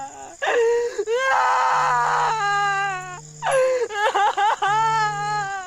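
High-pitched wailing cries, several long drawn-out wails that waver and bend in pitch, with short breaks between them.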